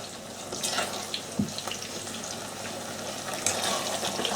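Chicken korma sauce cooking in a pan on the hob: a steady sizzling hiss with a few faint ticks and pops.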